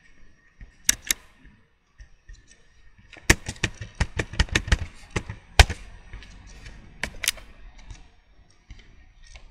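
Computer keyboard typing: a quick run of sharp key clicks lasting about two and a half seconds as a short command is typed and entered. A pair of single clicks comes about a second in and another pair near seven seconds.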